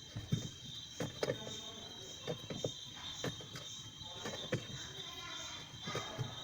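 Scattered clicks and knocks of a hand tool on metal as a bolt on a washing machine's spin-dryer motor is tightened.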